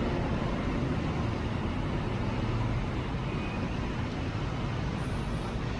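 Steady road traffic noise of cars, buses and trucks on a wet city road in heavy rain, with a low engine hum under an even hiss and no single standout event.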